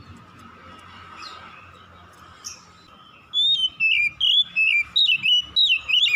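Oriental magpie-robin (kacer) singing: about three seconds in, a loud run of quick, varied whistled phrases begins over a faint steady background.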